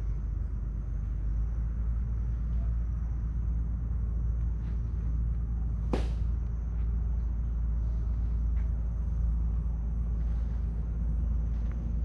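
Outdoor ambience on a walk along a mangrove trail: a steady low rumble, with a faint steady high-pitched hum above it. One sharp snap comes about halfway through, and a few faint ticks are scattered around it.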